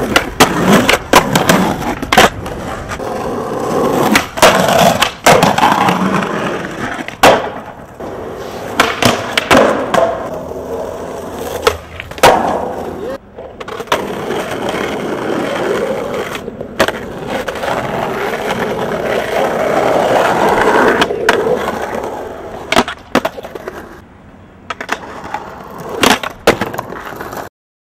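Skateboard wheels rolling on concrete and asphalt, broken by many sharp clacks and knocks of the wooden board popping and landing. The sound cuts off suddenly near the end.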